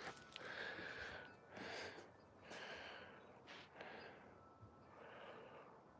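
Faint breathing: about five soft breaths, roughly one a second.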